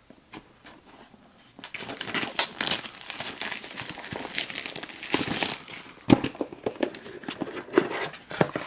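Clear plastic shrink wrap being torn and peeled off a small cardboard game box, crinkling and crackling in quick, irregular snaps. It starts about a second and a half in and goes on almost without a break.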